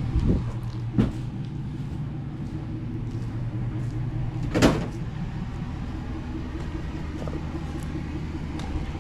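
An engine running steadily at idle, with a few knocks or thuds over it, the loudest about four and a half seconds in.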